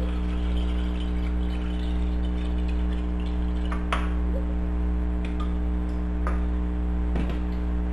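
A steady low electrical hum, with water pouring faintly from an aluminium can into a glass boot. There is a light click about four seconds in and two more later on.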